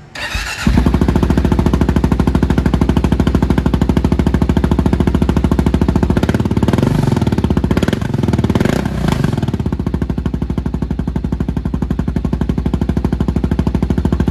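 Kawasaki dual-sport motorcycle's single-cylinder engine cold-started through an aftermarket muffler with the spark arrestor removed. It cranks briefly and catches under a second in, then runs at an even, pulsing idle. The note wavers a couple of times around the middle, and the engine is shut off at the very end.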